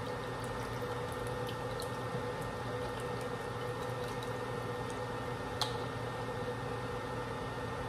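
Portable induction cooker running with a steady electrical hum and fan noise while heating a stainless steel pot. A few faint ticks come over it, the clearest a light click about five and a half seconds in.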